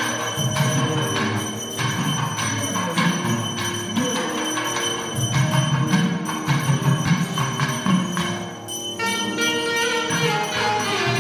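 Temple devotional music with a bell struck in a steady rhythm, about two or three strokes a second, over low sustained tones; a higher held melody comes in near the end.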